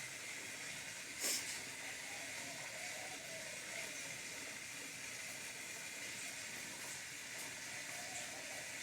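Campfire hissing steadily as damp firewood burns, with one sharp pop about a second in.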